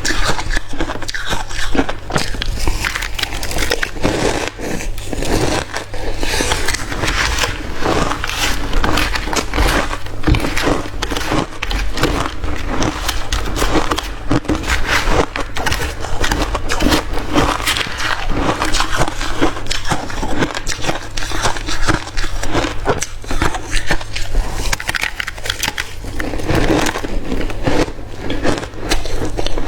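A person chewing mouthfuls of hard crushed ice close to the microphone: a dense, continuous run of loud crunches and crackles, over a steady low hum.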